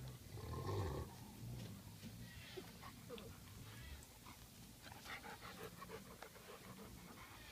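Faint sounds of dogs close by, breathing and shuffling, with a louder low sound in the first second and scattered small squeaks after it.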